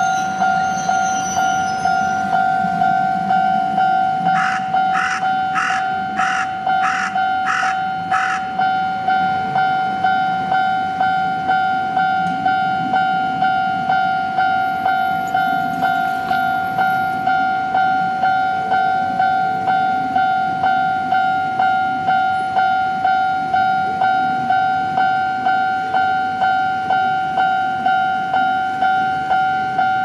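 Japanese railway level-crossing alarm ringing: the electronic warning bell repeats its two-tone clang about one and a half times a second while the crossing is closed. From about four to eight seconds in, a run of six short harsh calls sounds over the bell.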